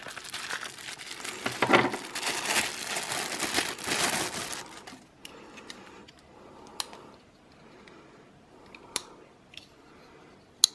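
Clear plastic wrapping crinkling and rustling as a new pocket knife is pulled out of its box and unwrapped. This lasts for roughly the first five seconds; after that there are only a few faint, sharp clicks.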